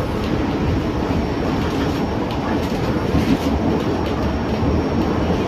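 A moving vehicle heard from inside, with a steady low rumble and road or track noise throughout.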